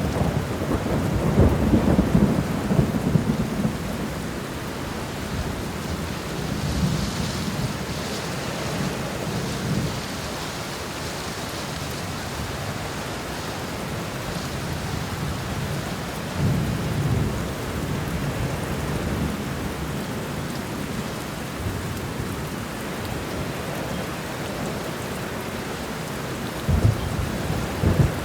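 Thunderstorm: steady rain falling with rolling low rumbles of thunder, the loudest in the first few seconds, another about halfway through and a short one near the end.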